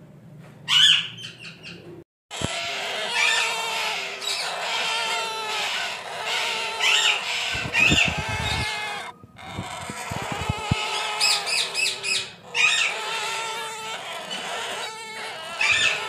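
Alexandrine parakeets calling and squawking, many voices overlapping into a continuous chatter of pitched calls and sliding screeches, with a few short knocks around the middle.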